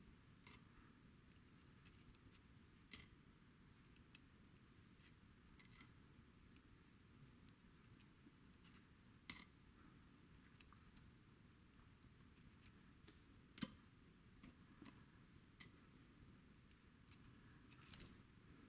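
Small metal parts of a disc-detainer lock clicking and clinking as the lock is taken apart: scattered light ticks, with a louder clatter near the end.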